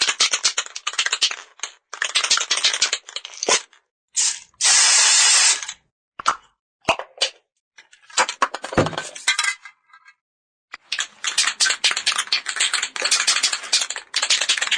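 Aerosol spray can shaken hard, its mixing ball rattling rapidly inside, in two bouts. About four and a half seconds in, a short spray hiss lasting about a second, then a few sharp clicks and handling noise, and finally another long bout of rattling shaking.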